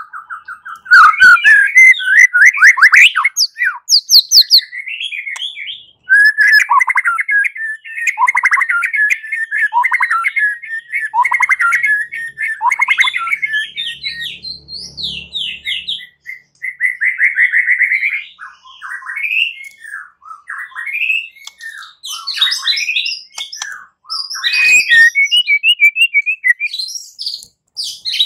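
White-rumped shama (murai batu) singing a loud, fast, varied fighting song ('tarung') of rapid trills, quick repeated notes and whistles, with a few brief pauses.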